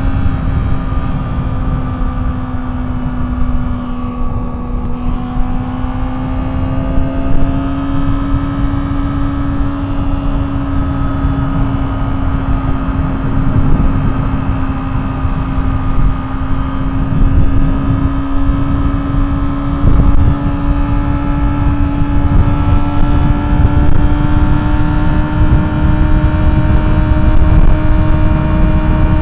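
Sport motorcycle's engine at high rpm at highway speed: a steady exhaust note that dips slightly about four seconds in, then climbs slowly as the bike gains speed, over heavy wind rush on the helmet-mounted microphone.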